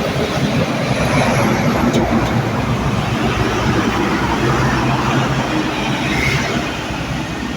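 Heavy road traffic with a large bus's engine and tyres passing along the road, a steady loud drone with road noise that eases slightly near the end.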